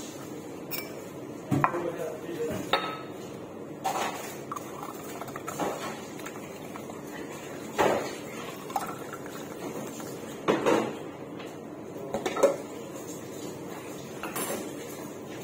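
Stainless steel mixing bowl and brass cocktail shaker tin knocking and clinking against each other and glassware while a mango mixture is poured, in scattered short knocks every second or two.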